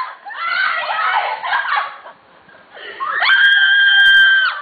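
Excited voices, then about three seconds in a person's long, high-pitched scream held on one steady note for over a second.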